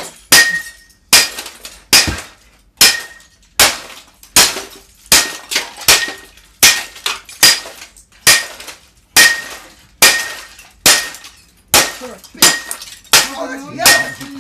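A printer being smashed with a heavy hand tool: hard blows in a steady rhythm, about one every 0.8 seconds, each with a brief metallic ring and the sound of parts breaking.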